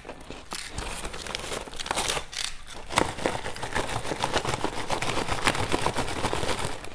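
Crispy food being bitten and chewed: dense, rapid crackling crunches that grow busier from about two seconds in.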